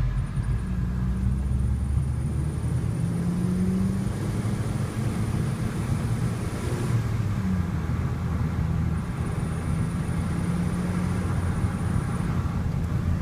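VW Golf Mk5 GTI's 2.0 TFSI engine running steadily, with a thin, very high, steady whistle over it that drops out for about two seconds midway and then returns. This is the odd whistle the owner is investigating.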